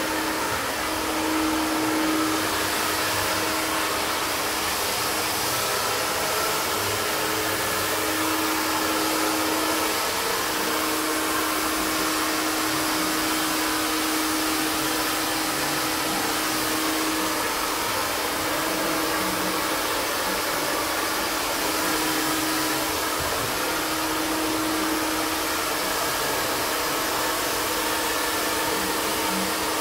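Handheld iTeraCare terahertz health blower running steadily, a hair-dryer-like fan rush with a constant low hum that swells and dips slightly.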